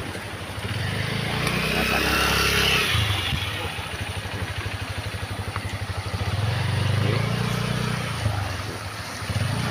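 Motorcycle engines running close by: a trail motorcycle's engine rises in pitch and grows louder in the first few seconds, then runs at low revs with a rapid, even pulsing, and grows louder again about six seconds in.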